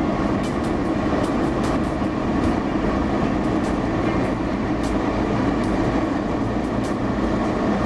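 A four-wheel drive's engine and tyres rumble steadily on a sandy track, heard from inside the cabin. Scattered sharp knocks and rattles sound through it.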